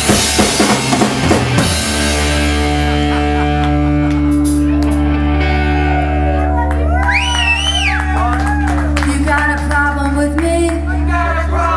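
Live rock band: a drum fill for the first couple of seconds, then a long held chord from bass and guitars. Over the chord a high note slides up, holds and falls back about seven seconds in, and short sung or played phrases come near the end.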